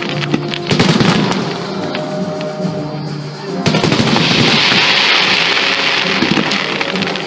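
Fireworks bursting in repeated sharp bangs, with a loud cluster about a second in and a dense crackling that starts suddenly a little past halfway, over music.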